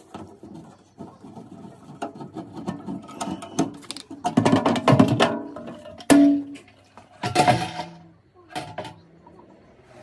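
The sheet-metal front casing of an old Potterton Kingfisher MF boiler being worked loose and lifted off: a run of scrapes, rattles and knocks, with a sharp metallic clang that rings briefly about six seconds in.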